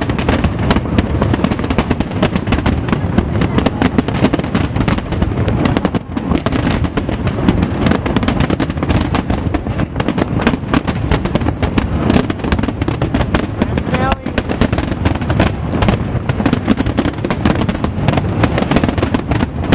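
Large fireworks display going off without a break: rapid, overlapping bangs and crackles over a constant low rumble, with a brief lull about six seconds in and again near fourteen seconds.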